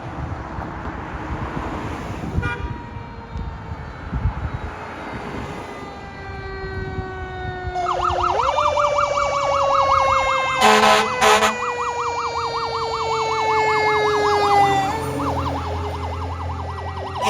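Fire apparatus siren on an emergency response: a mechanical siren wail falling slowly, wound back up about eight seconds in and falling again, joined from then on by a fast electronic yelp siren. Two short horn blasts come around the middle, over engine and road noise.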